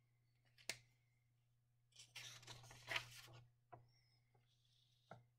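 Paper worksheets being handled and turned over on a desk: a faint paper rustle lasting about a second, starting about two seconds in, after a single sharp click.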